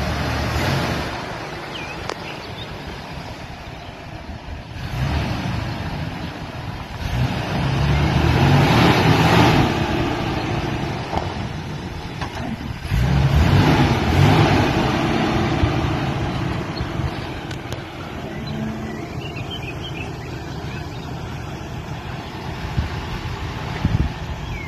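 Nissan Patrol 4WD engine running at low speed and revving up twice, about seven and thirteen seconds in, as the vehicle crawls its front wheel up a dirt mound to flex the suspension.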